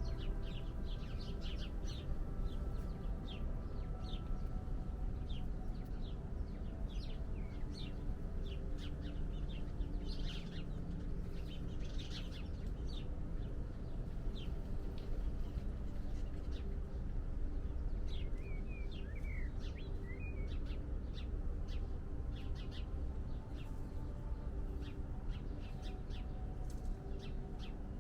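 Many small birds chirping in short, high, rapid calls, over a steady low rumble of outdoor noise with faint held notes underneath.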